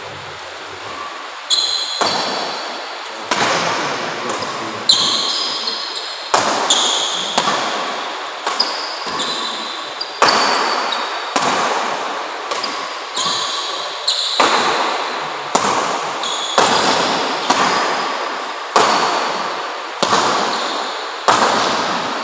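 Badminton rackets hitting a shuttlecock in a long doubles rally: a sharp crack about once a second, starting about a second and a half in, each echoing briefly in the large hall.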